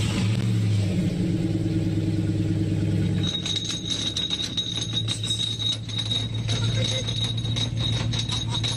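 Pickup truck engine starting and running, then about three seconds in a steady high whine and rapid clattering join as the truck is put in gear and the exposed ring-and-pinion differential turns with its cover off. The differential is already wrecked.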